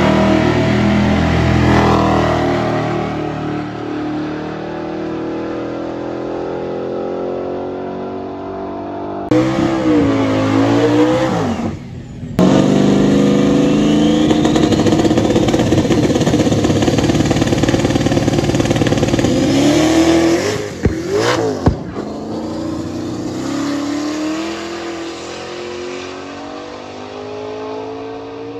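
High-horsepower donk drag cars' engines revving and running, the pitch swinging up and down several times. The sound changes abruptly a few times.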